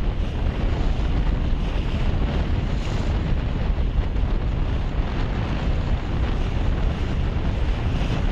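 Strong wind buffeting the microphone: a steady, heavy rushing noise, with the wash of waves beneath it.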